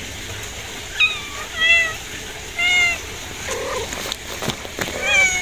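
Kittens meowing: four short, high-pitched mews, the last near the end, with a few light clicks in between.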